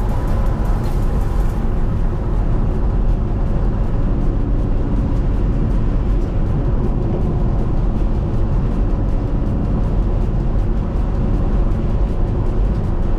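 Steady low road and engine rumble of a vehicle driving on the interstate, heard from inside the cabin.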